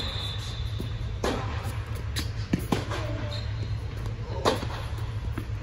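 Tennis ball hits off the racket and bounces on the court, a few sharp pops spaced a second or two apart, echoing in an indoor tennis dome. A steady low hum runs underneath.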